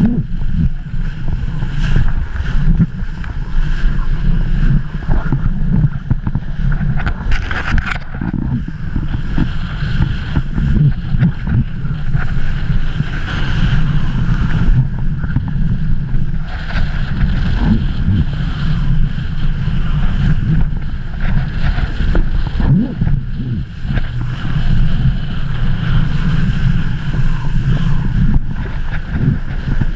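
Strong wind buffeting the microphone in gusts, over the rush of a kiteboard skimming across choppy water.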